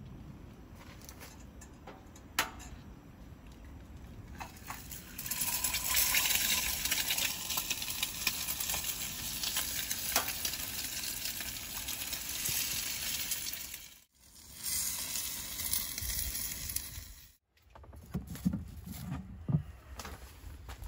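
Eggs frying in a pan on a portable gas stove, a steady sizzle that comes up a few seconds in.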